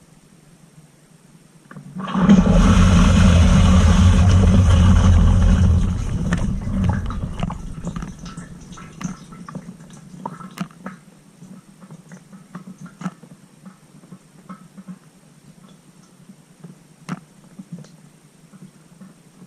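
Water rushing inside a Cylinda dishwasher during its rinse cycle. It starts suddenly about two seconds in, runs loudly with a low rumble for about four seconds, then dies away into scattered drips and trickles.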